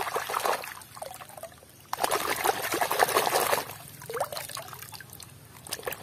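Muddy water sloshing and splashing in a plastic basin as a small toy vehicle is swished and scrubbed through it by hand, in two main bursts, the second beginning about two seconds in and lasting over a second.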